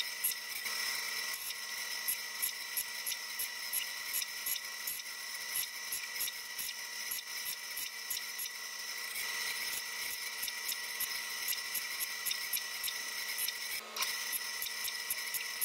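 Benchtop bandsaw running with a steady high whine and a fast, even ticking, while thin wooden strips are fed through the blade to cut splines.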